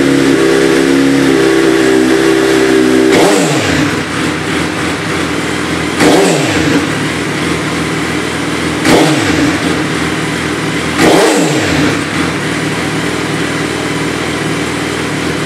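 2008 Suzuki B-King's inline-four running through a Two Brothers M2 exhaust fitted with P1 power tips, which are meant to quiet it by 4 to 5 dB. The engine is held at raised revs, drops to idle about three seconds in, then gets three quick throttle blips, each rising and falling in pitch.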